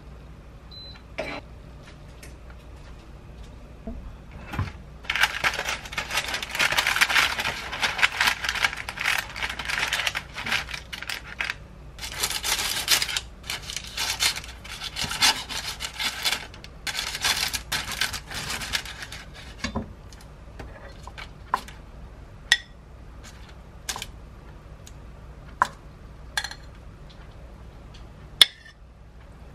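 A short electronic beep from an air fryer oven's control panel about a second in. Then comes a long spell of crackly baking-paper rustling, with knife and tongs working on a wooden cutting board. Near the end there are sparse clinks of a metal spoon against a ceramic plate.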